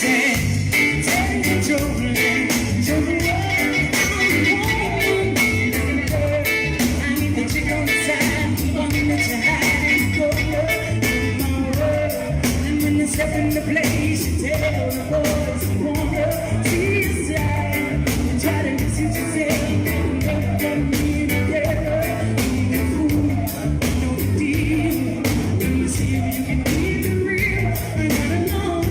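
Live reggae music: a band plays a steady beat with heavy bass while a singer's voice carries over it.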